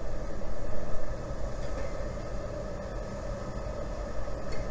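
Steady low rumble and drone of the Great Lakes freighter Mesabi Miner passing close, its diesel engines running as it moves through the canal. The level wavers, with louder swells near the start and about a second in.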